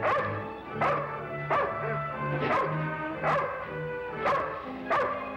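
A dog barking repeatedly, about seven barks, one every three quarters of a second, over background music holding low notes.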